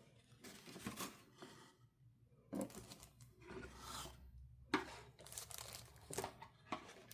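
Paper and packaging rustling and crinkling as the phone's box contents are handled and unpacked, in short, irregular rustles.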